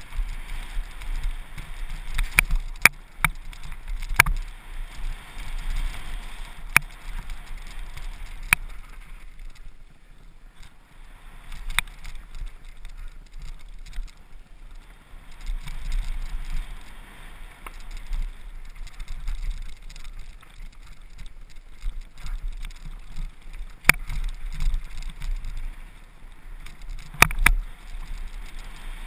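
Trek Remedy 8 full-suspension mountain bike running fast downhill over gravel and dirt: a steady rumble and hiss of tyres on loose stones and wind on the camera microphone, with sharp clacks of the bike rattling over bumps every few seconds.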